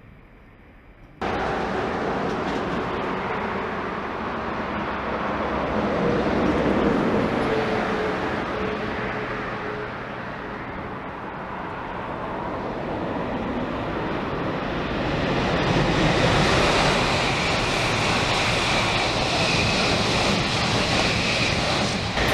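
Shinkansen bullet trains passing at speed: a steady rush of wheel and air noise that starts abruptly about a second in and swells again in the second half.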